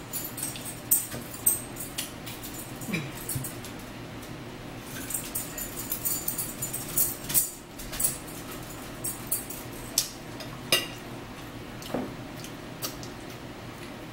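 Mealtime table sounds: scattered sharp clicks of a fork on a plate and crinkling as small plastic condiment packets are handled and torn open, with chewing close to the microphone.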